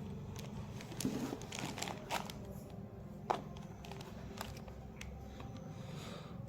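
Handling noises as AAA batteries are fitted into a Dell wireless keyboard's battery compartment: rustling and a few sharp plastic clicks, the sharpest about three seconds in, over a low steady hum.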